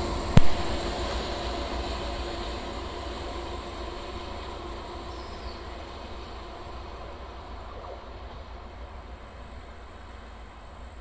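A DR1AM diesel multiple unit running away along the track, its engine and wheel noise fading steadily as it recedes. A single sharp knock sounds about half a second in.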